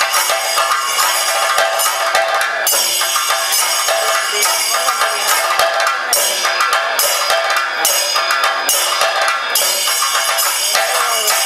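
Several chenda drums beaten with sticks in a fast, dense thayambaka-style rhythm, with cymbals ringing over the drumming.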